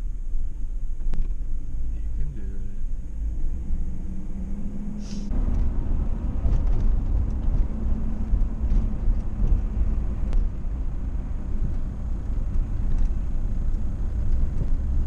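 Pickup truck on the move, heard from inside the cab: a steady low engine and road rumble that grows louder and fuller about five seconds in.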